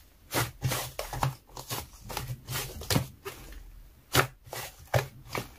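Thick white slime being squeezed and stretched by hand, giving a run of short, irregular sticky pops and squelches.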